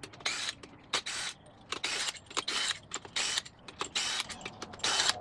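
Hand ratchet wrench clicking in repeated short strokes, about seven swings, working a bolt loose on an engine block being torn down.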